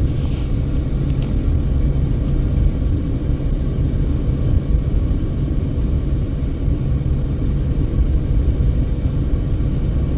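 Steady low rumble of a car driving at highway speed up a grade, with engine and tyre noise and a faint steady hum.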